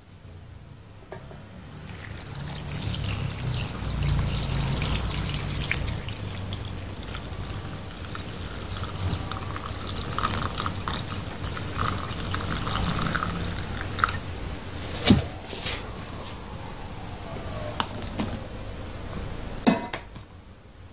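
Liquid poured from a stainless steel bowl onto cubed radish and cabbage in another steel bowl, splashing and trickling for about twelve seconds. A few sharp clinks follow, the loudest about fifteen seconds in.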